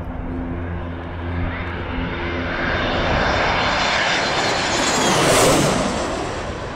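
A pair of Sukhoi Su-25 attack jets flying low overhead with their twin turbojets running. The jet noise builds steadily to a peak about five seconds in, then falls away with a high whine that drops in pitch as they pass.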